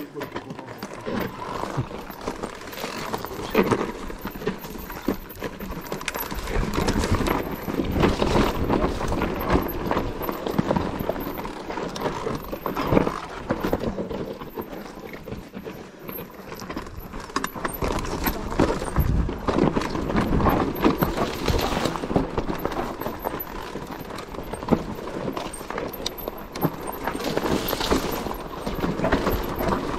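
Mountain bike ridden down a trail: a continuous, uneven clatter of knocks and rattles from the bike and its tyres over the ground, over a steady rushing noise.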